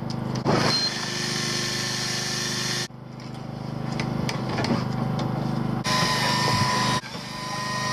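A motor running steadily with a low, even hum; its sound changes abruptly a few times.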